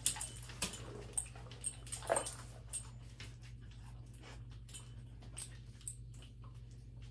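A dog foraging for treats scattered on the floor: a string of light clicks and taps over the first few seconds, with one short whine about two seconds in.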